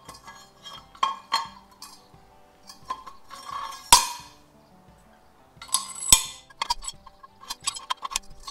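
Steel slice-seeder blades and metal spacers clinking as they are slid down a steel reel shaft and stacked onto it, with a string of sharp clinks and two louder metal clanks about four and six seconds in.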